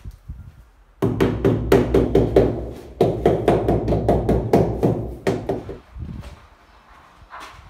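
Rubber mallet tapping a ceramic wall tile to bed it into fresh tile adhesive: a rapid run of strikes, about five a second, lasting about four seconds.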